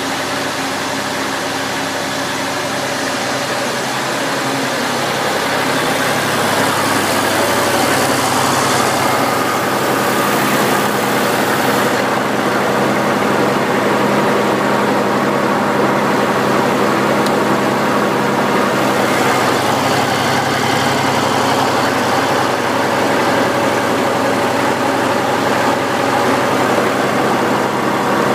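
Massey Ferguson 35X tractor engine idling steadily, growing a little louder over the first few seconds.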